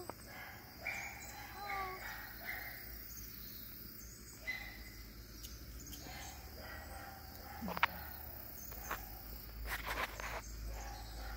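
Quiet outdoor background with a few short, pitched animal calls, mostly in the first two seconds, and a few light knocks near the end.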